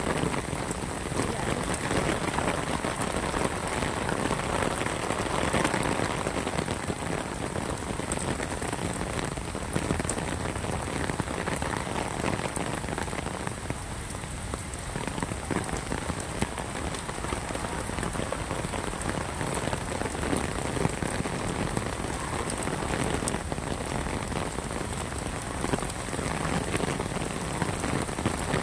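Heavy rain falling steadily on wet stone paving and lawn: a dense, even hiss of countless drops.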